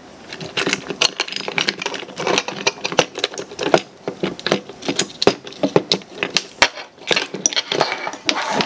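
Plastic housing and internal parts of a Makita DHR202 cordless rotary hammer being handled as the wiring harness, trigger switch and brush holder are pulled out: a run of irregular clicks, knocks and rattles of plastic parts and wires, with light rustling between them.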